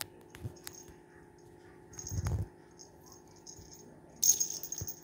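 A cat wand toy jingles in short bursts as it is jerked about and batted by cats' paws, the loudest burst near the end. A soft thump is heard about two seconds in.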